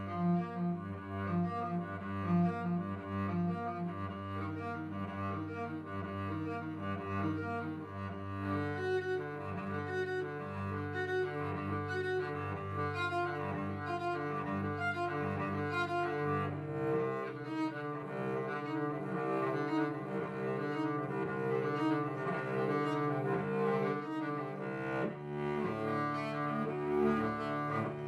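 Solo cello played with the bow: held low notes sounding under a quick, continuous pattern of changing notes above them. The lowest note drops out about 17 seconds in.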